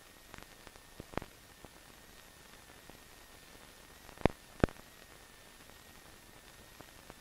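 Faint steady hiss of the soundtrack with scattered small clicks, and two sharp pops a little past four seconds in.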